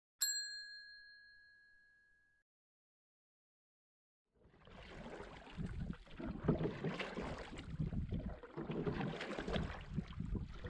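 A single bright, bell-like ding that rings and fades away over about two seconds. After a short silence, a rushing noise comes in about four seconds later and keeps swelling and easing every couple of seconds, like wind on the microphone over open water.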